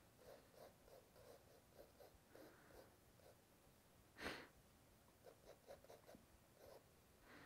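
Faint scratching of a fountain pen nib on sketchbook paper in short, quick hatching strokes, with one louder rasp about four seconds in.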